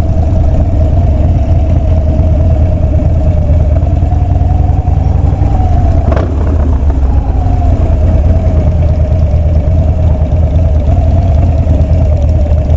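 Harley-Davidson Street Bob's V-twin engine running steadily at low speed, heard through the rider's helmet-mounted mic, with a brief short sound about six seconds in.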